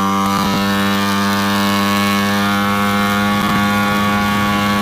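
Tuned Vespa racing scooter engine of about 200cc, running at high revs at a steady, unchanging pitch while being ridden.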